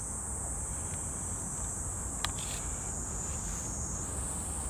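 Steady high-pitched chorus of insects in summer vegetation, with a single faint click about two seconds in.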